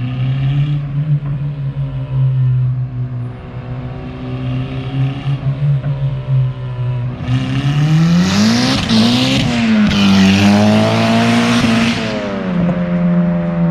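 Car engine running at a steady low speed, then revved up and down for several seconds with a loud rushing hiss over the engine note, before settling back to a steady run near the end.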